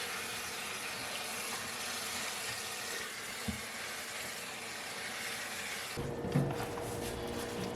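Water running steadily from a tap during the rinsing of towels. About six seconds in, the sound changes abruptly to a lower, quieter texture.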